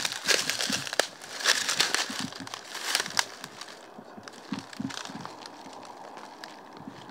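Dry reed stalks crackling and crunching as someone pushes and steps through them. It comes in several bursts over the first three seconds, then eases to fainter rustling.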